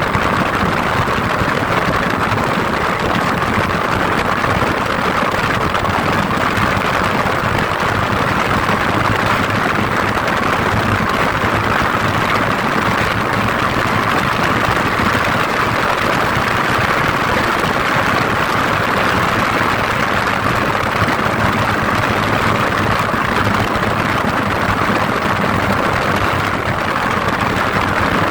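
Steady engine hum and running noise of a vehicle, unchanging throughout.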